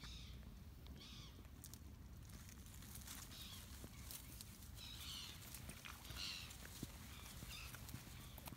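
Young Eurasian otter giving faint, high-pitched squeaking calls about once a second, with light rustling in the weeds around it.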